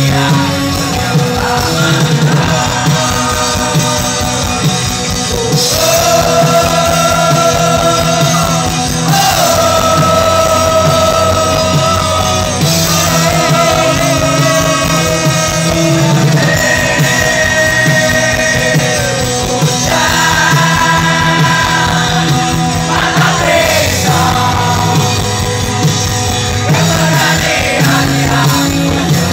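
Rock band playing live and loud, with drums, guitars and long held melody notes.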